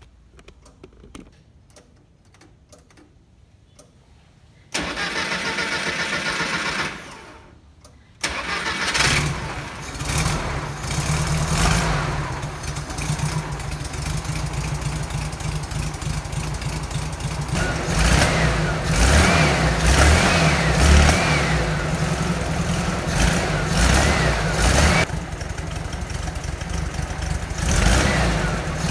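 First start of a 1973 VW T2 bus's stock 1600cc air-cooled flat-four on a freshly fitted Weber 32/36 carburettor. It is cranked about five seconds in, then catches and runs unevenly, the revs rising and falling as the throttle is worked at the carburettor. There is a little backfiring near the end.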